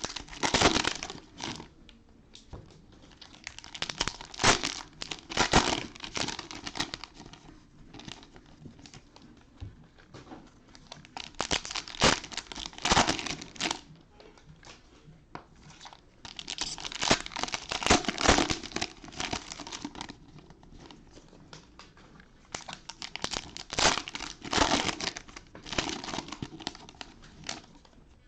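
Cellophane wrappers of trading-card cello packs being torn open and crinkled by hand, in about five bouts of a few seconds each with quieter gaps between.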